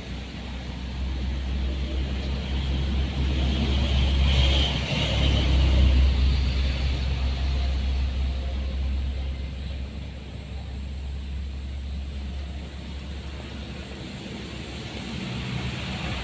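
A road vehicle's engine running past on the road: a low rumble that swells to its loudest about four to six seconds in, then fades away.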